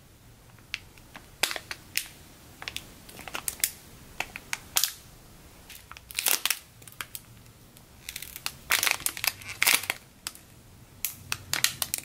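Clear plastic bags around foam squishy toys crinkling as hands hold and turn them: irregular crackles that come in short clusters.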